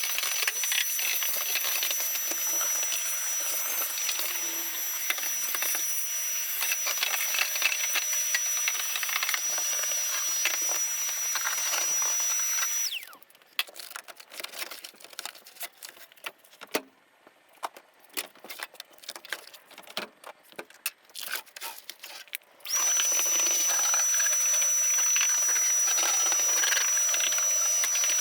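Shop vacuum running with a steady high whine and hiss as it sucks dirt out of a stripped truck cab. It cuts off about 13 s in, leaving about ten seconds of scattered scrapes and clicks, then starts again about 23 s in.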